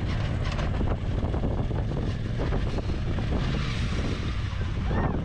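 Side-by-side UTV's engine running steadily in shallow water, a continuous low drone.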